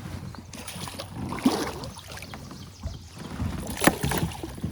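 Water splashing and sharp knocks around a kayak as a hooked smallmouth bass is fought alongside the boat. The loudest knock comes near the end.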